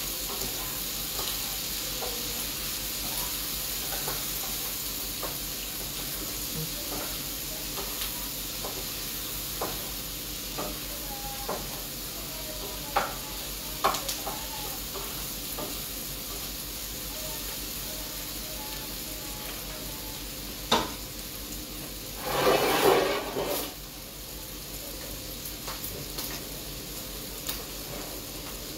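Liver and onions sizzling as they fry in a pan, stirred with a wooden spatula that taps and scrapes against the pan now and then. About 22 seconds in comes a louder burst of noise lasting over a second.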